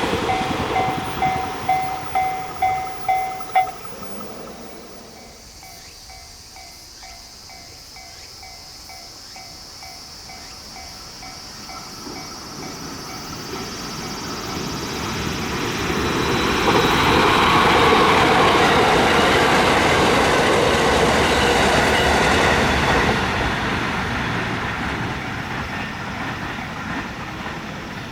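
Japanese railway level-crossing alarm ringing its rapid two-tone dings, cutting off about four seconds in as the crossing clears, with a fainter crossing bell going on further off. Then a train's rumble swells to its loudest around the middle and slowly fades.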